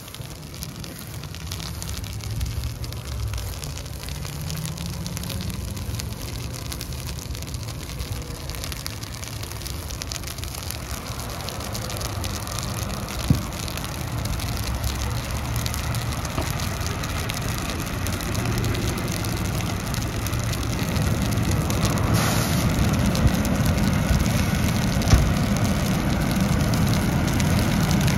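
A burning car and roadside grass fire crackling and hissing, with a few sharp pops. A fire engine's engine rumbles beneath it, growing louder from about halfway through as the truck pulls up and idles.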